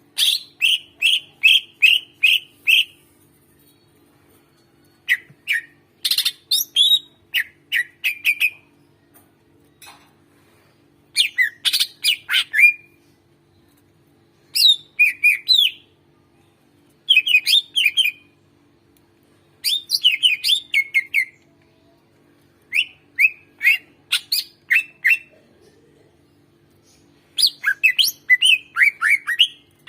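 Green leafbird (cucak ijo) singing in about eight loud bursts of rapid repeated chirps and sharp whistled notes, each burst a second or three long with short pauses between.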